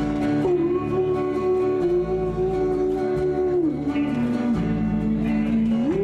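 A male singer holding long wordless notes in a country cattle-call yodel, stepping down in pitch about two-thirds in and leaping up near the end, over a strummed acoustic guitar.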